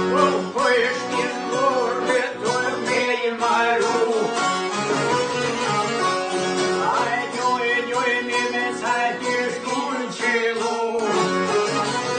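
Albanian folk music played live on long-necked plucked lutes and a piano accordion, with a continuous, ornamented melody.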